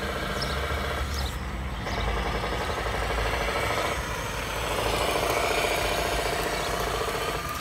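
Simulated truck diesel engine sound played by an ESP32 sound controller through the speaker of a 1/14 scale RC Mercedes Actros tractor truck, with the truck driving in second gear. The sound dips briefly after about a second and gets louder from about five seconds in as the truck speeds up.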